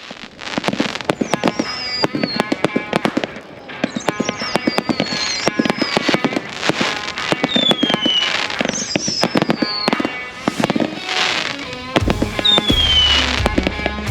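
Fireworks going off, dense crackling and popping with several short falling whistles, over music; a heavy bass beat comes in near the end.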